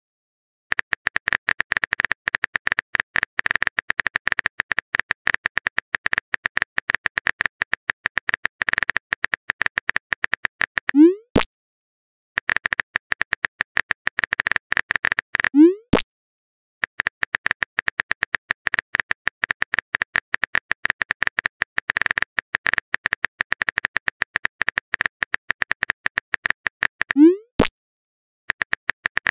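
Texting-app sound effects: rapid, steady typing clicks in long runs, each run ending in a short rising pop as a message bubble is sent, three times.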